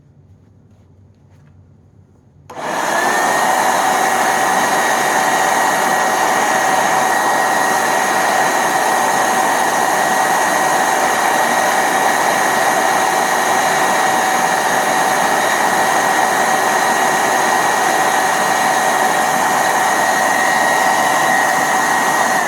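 Hoover SteamVac Widepath carpet cleaner switched on about two and a half seconds in for a test run, its motor running loud and steady with a high whine, then switched off at the end and winding down.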